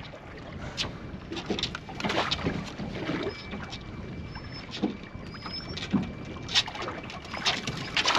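Water splashing and sloshing around a small boat, with scattered short knocks, while a hooked pike is brought to the landing net.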